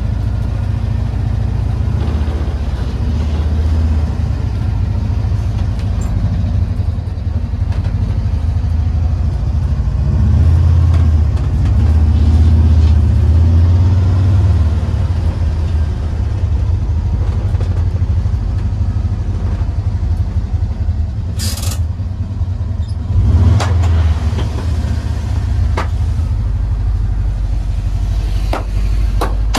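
Inside a moving Volkswagen bay-window bus: the rear-mounted air-cooled flat-four engine running with a steady low rumble over road noise, swelling louder for a few seconds about ten seconds in. Several short knocks and rattles come in the second half, the loudest a thump about two-thirds of the way through.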